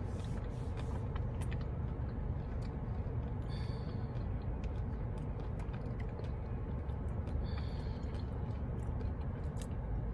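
A crunchy snack being chewed close to the microphone, with scattered small crackles and clicks, over the steady low rumble inside a car's cabin.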